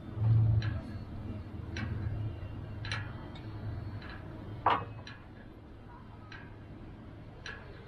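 Short, sharp clicks and ticks at uneven spacing, roughly one a second with a louder one midway, from a sailing trimaran's rigging and deck hardware as a line is handled. A low rumble runs underneath, loudest in the first second.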